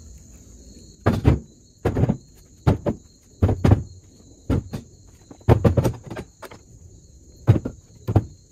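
Split firewood being thrown onto a load piece by piece: irregular knocks of wood on wood, about one or two a second. A steady high insect drone runs beneath.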